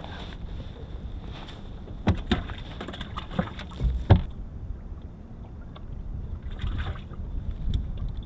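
Steady low wind and water noise around a small fishing boat, with a run of sharp knocks and clicks from fish and tackle being handled in the boat about two to four seconds in, the loudest just after four seconds.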